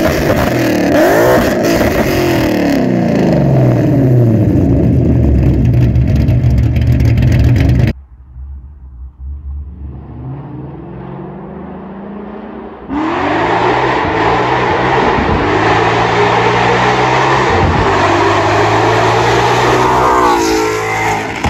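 Ford Mustang GT's Coyote 5.0 V8 running through long-tube headers, an X- and H-pipe and no mufflers or resonators, revving and accelerating with its pitch rising and falling with the revs. About eight seconds in the sound cuts abruptly to a quieter stretch, then comes back loud with more revving about five seconds later.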